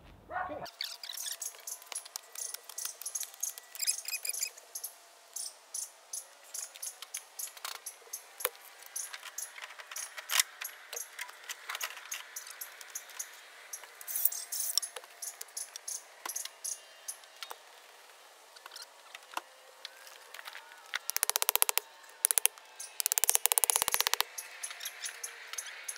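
Hand-tool work on a temporary power pole's electrical panel: scattered sharp clicks and metal taps, thin with no low end. Two dense, rapid rattling bursts come near the end.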